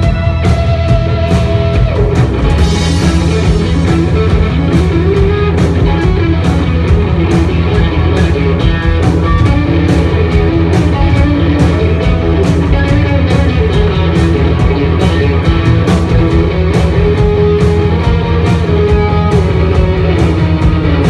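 Live rock band: an electric guitar plays gliding lead lines over a steady drum beat, with a cymbal crash about two and a half seconds in.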